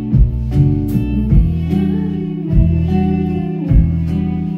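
A band playing a slow song live, led by a hollow-body electric guitar over sustained keyboard and bass notes, with a steady beat.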